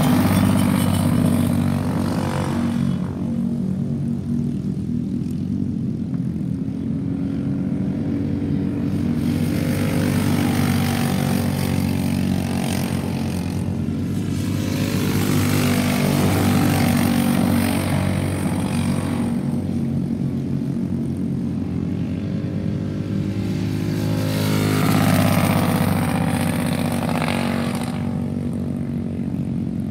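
Racing go-kart engines running at high revs as the karts lap the track, a steady buzzing drone that swells several times as karts come past close and fades as they move away.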